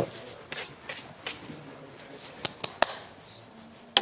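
A plastic water bottle being handled, its cap gripped: a scatter of sharp clicks, a few close together past the middle and the loudest one at the very end.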